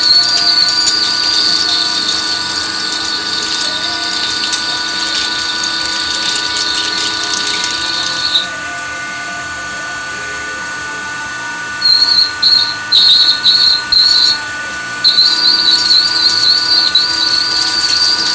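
WWII-era manual lathe running with a steady machine whine while its cutting tool squeals at a high pitch against a cylinder head. The squeal runs for about eight seconds and stops. It comes back as a few short squeals and then settles into a steady squeal again for the last few seconds.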